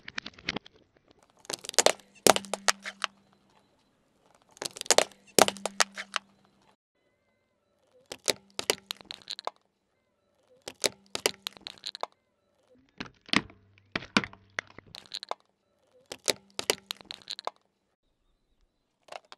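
Car tyre rolling over and crushing small liquid-filled bottles and jars on asphalt: about seven bursts of sharp cracking and crunching, each a quick run of snaps, separated by short silences.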